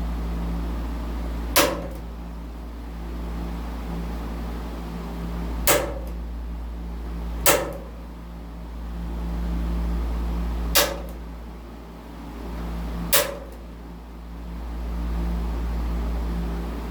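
Five sharp snaps a few seconds apart from tool work on sheet metal, over a steady low hum.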